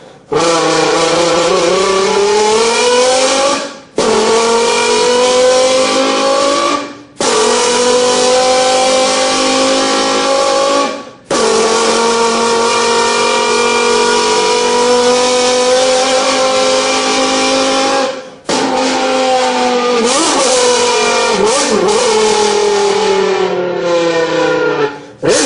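Imitation of a Lamborghini V10 engine made by mouth with a folded beer can: a buzzing engine-like note that climbs in pitch, cuts out briefly and climbs again, about five times, like a car accelerating through upshifts.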